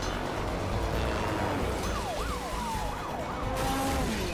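Several police car sirens wailing and yelping at once, with quick up-and-down sweeps in the middle, over a low engine rumble.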